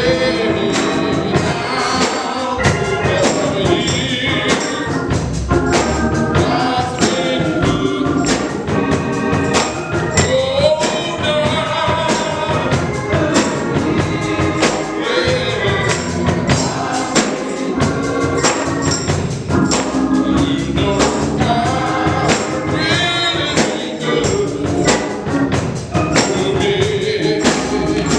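Live gospel music: singers with a choir, over a band whose percussion keeps a steady beat.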